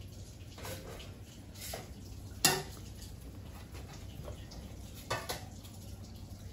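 Kitchen dishes and utensils clinking and clattering in a few scattered knocks, the loudest a sharp ringing clank about two and a half seconds in and another about five seconds in, over a steady low hum.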